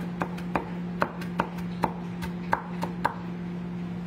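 Chef's knife chopping onion on a wooden cutting board: about ten quick, uneven knife strikes against the board, stopping about three seconds in.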